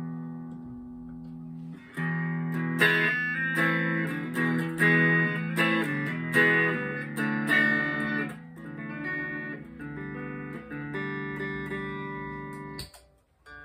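Slick SL50 Telecaster-style electric guitar played clean through an amplifier: a chord rings and fades, then a run of picked notes and chords follows, cutting off suddenly near the end.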